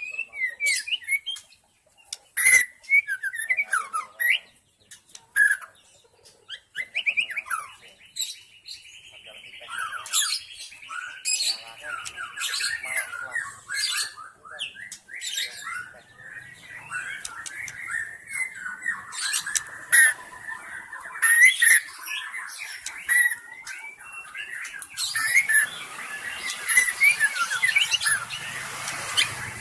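White-rumped shama (murai batu) singing a long, varied song of quick whistled phrases and trills, mixed with sharp clicking notes, busiest near the end.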